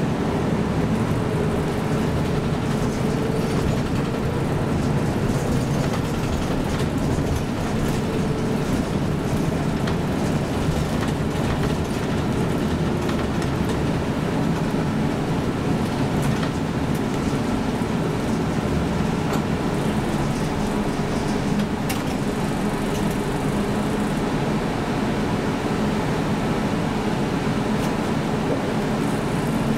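City route bus driving, heard from inside the cabin: steady engine and road noise, with the engine note rising near the end.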